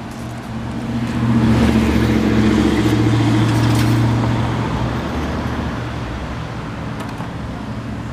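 A motor vehicle's engine humming. It swells about a second in and fades slowly after about four seconds, as a vehicle passing by.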